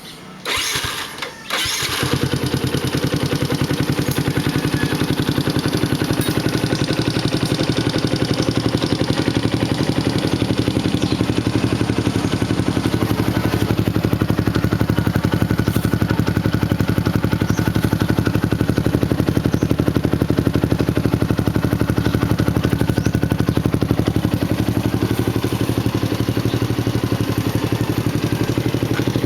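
Yamaha T135 single-cylinder four-stroke motorcycle engine breathing through a nob1 triovale AL racing exhaust muffler: it starts up about a second in, then idles steadily without revving.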